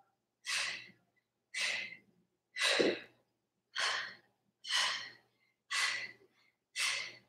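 A woman breathing out hard, seven short exhalations about one a second, one with each knee drive of a plank-position core exercise.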